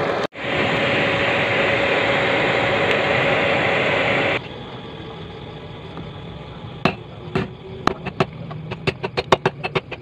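A blown charcoal forge running steadily, stopping abruptly about four seconds in. Then, from about seven seconds in, a hammer striking a red-hot steel bearing ring on a steel anvil plate: about a dozen blows, coming faster toward the end.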